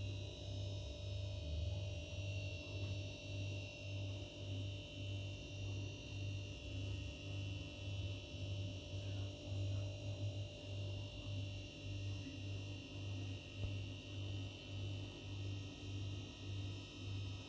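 A low hum that pulses evenly about twice a second, with a faint steady high whine over it.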